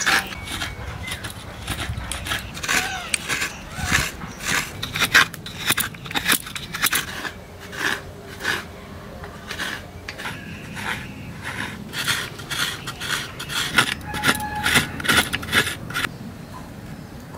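Half a coconut being scraped against the serrated scraper of a bonti blade. Repeated short rasping strokes come about two a second as grated coconut flesh drops into a steel plate.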